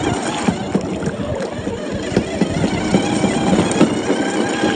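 LDRC 1/14-scale Land Rover RC car driving off-road: a faint electric motor whine under many irregular crunches and knocks from the tyres and chassis over rough ground.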